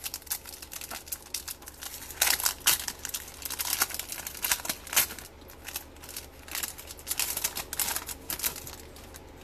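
Foil wrapper of a hockey card pack crinkling in irregular crackles as hands tear it open, dying away near the end.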